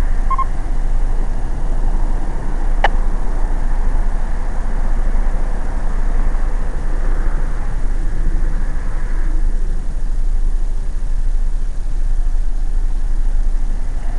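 Steady noise of a car idling, heard from inside the cabin, with one sharp click about three seconds in.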